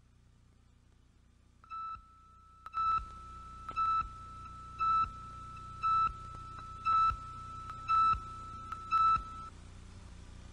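Countdown beeps on the head of an old TV recording: eight short high beeps, about one a second, over a fainter steady tone at the same pitch that stops just after the last beep.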